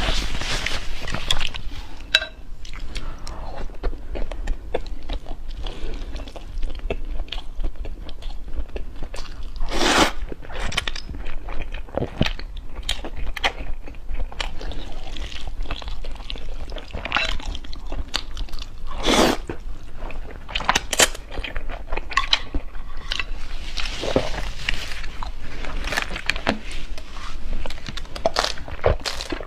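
A person eating spicy noodles and eggs, close to the microphone: chewing and biting, with irregular crisp crunches and clicks, and a few longer, louder mouthfuls.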